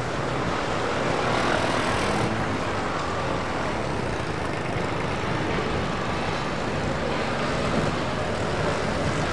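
Busy city traffic: cars, a bus and motor scooters passing, a steady wash of engine and tyre noise.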